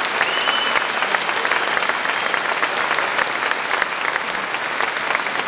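Large audience clapping steadily, a dense even applause. A brief high steady tone sounds through it about half a second in.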